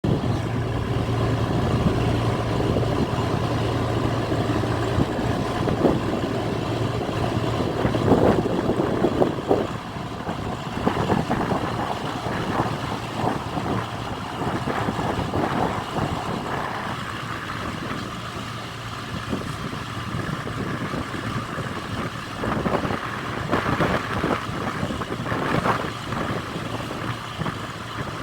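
An engine running steadily, with irregular knocks and clatter on top.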